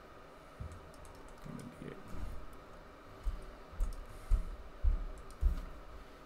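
Faint clicks of a computer mouse and keyboard while an on-screen colour is picked, with a run of five low thumps about half a second apart in the second half.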